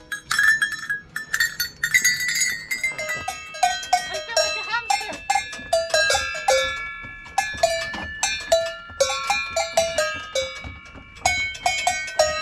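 Cowbells of several different pitches struck in quick, uneven succession, a few strikes each second, their tones ringing on and overlapping.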